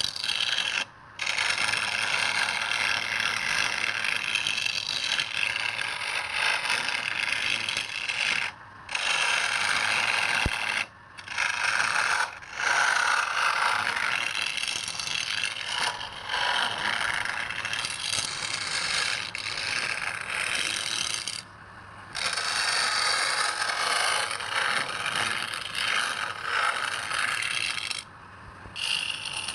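A turning tool cutting wood spinning on a lathe: a continuous, loud scraping noise that breaks off for a moment several times as the tool is lifted from the wood.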